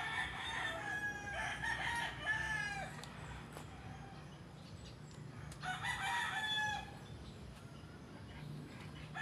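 Roosters crowing: drawn-out crows with falling endings during the first three seconds, and another crow about six seconds in.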